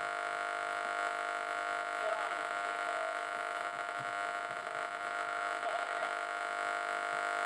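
Steady hum with many overtones from the loudspeaker of a restored H.M.V 1421 radio, holding an even level between stretches of broadcast speech.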